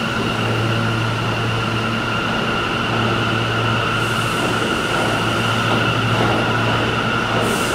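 R179 subway train moving along the station platform: a continuous rumble of wheels and equipment with a steady high whine held at one pitch, and a brief hiss near the end.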